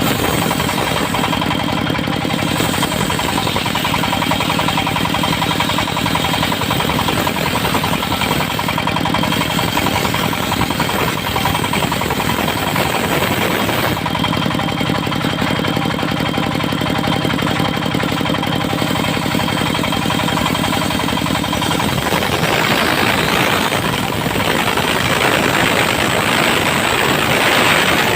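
Engine-driven mobile circular sawmill running steadily, its saw blade cutting through teak wood. A harsher cutting noise swells over the engine about 22 seconds in and is loudest near the end.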